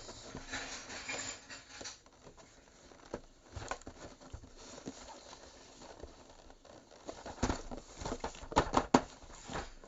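Hands packing product packaging back into a cardboard box: scattered rustles and light clicks, with a cluster of louder sharp clicks and knocks about three-quarters of the way through.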